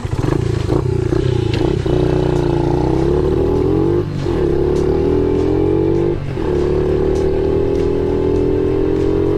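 Honda Monkey Z50J's small single-cylinder engine pulling under way, its pitch climbing as it accelerates, with brief dips about four and six seconds in as it shifts up a gear.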